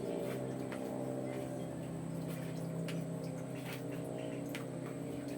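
Spoon working laksa spice paste through a strainer: soft wet squishing and a few scattered light clicks, over a steady low hum.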